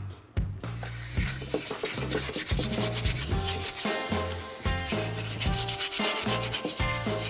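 Stiff brush scrubbing the grimy intake manifold around the carburettor mounting flange, in fast rubbing strokes starting about a second in. Background music with a steady bass line plays throughout.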